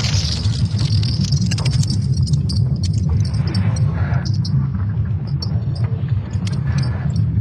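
Audio sonification presented as the sound of the Earth's magnetic field: a deep, steady rumble with scattered crackles and clicks over it and a few soft hissing swells.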